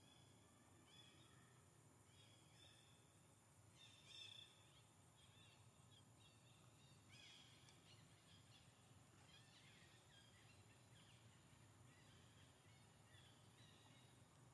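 Faint, high chirping animal calls, repeated many times, with the loudest calls about four seconds in and again about seven seconds in.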